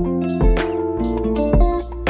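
Background music led by plucked guitar notes over sustained bass notes.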